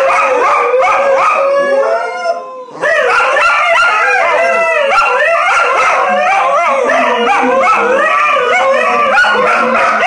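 A husky and a cocker spaniel howling together, several overlapping howls wavering up and down in pitch, with a brief break about two and a half seconds in.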